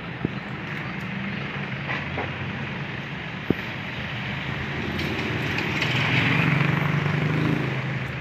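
Street traffic: a motor vehicle's running noise that grows louder about five seconds in and eases off near the end. Two brief sharp clicks cut through it, the louder one a few seconds in.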